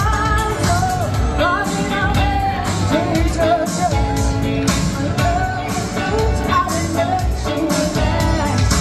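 Pop-rock song: a singer carrying the melody over drums, guitar and bass with a steady beat.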